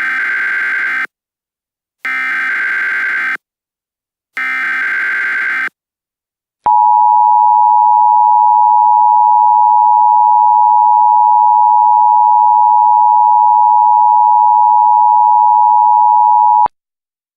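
Emergency Alert System tornado warning opening: three one-second bursts of SAME header data tones with short gaps between them, then the loud, steady two-tone attention signal held for about ten seconds and cut off sharply.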